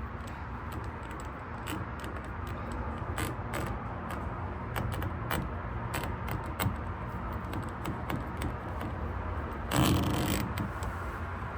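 Small metal clicks, taps and scrapes of hand-fitting an aluminium steering-cable thread adapter onto the cable end, over a steady low background rumble. A louder scraping rustle comes about ten seconds in.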